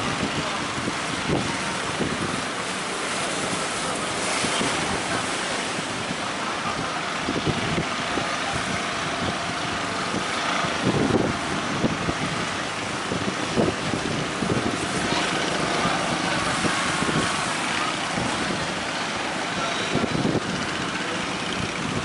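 Steady rush of breaking surf and wind on the microphone, with the engine of an outrigger fishing boat running under it.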